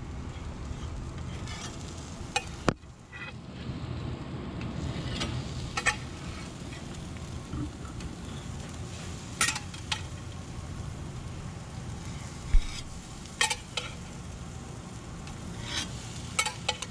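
Kingfish burger patties sizzling steadily in coconut oil on a hot grill, with a few sharp pops and ticks scattered through.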